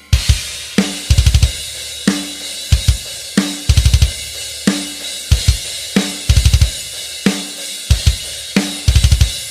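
Drum kit playing alone in a fast metal groove: quick groups of four or five bass-drum strokes alternate with sharp snare hits in a steady repeating pattern, with cymbals ringing throughout.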